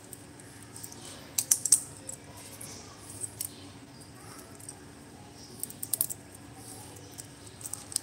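Quick clusters of sharp little clicks and taps, about a second and a half in and again around six seconds, from a green parakeet moving on a marble floor up to sunflower seeds held out on a palm.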